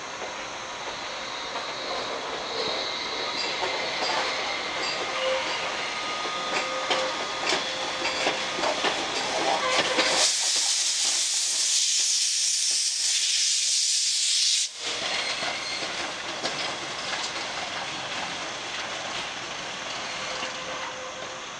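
D51 steam locomotive moving slowly through the yard: a steady run of wheel clicks over rail joints and points, broken midway by a loud hiss of released steam lasting about four and a half seconds that cuts off suddenly.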